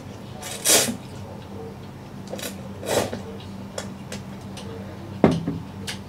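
A man slurping buckwheat noodles in short noisy sucks, three or so, with small mouth clicks in between. A sharp knock about five seconds in, and a low steady hum underneath.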